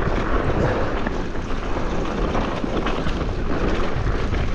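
Wind rushing over the camera microphone and tyres rattling over dry, loose dirt as a mountain bike rides the trail.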